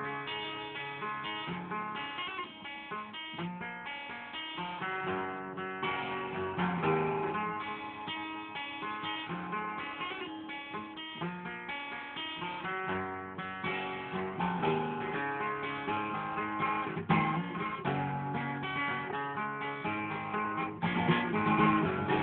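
Acoustic guitar playing a song's instrumental intro, strummed chords with picked notes.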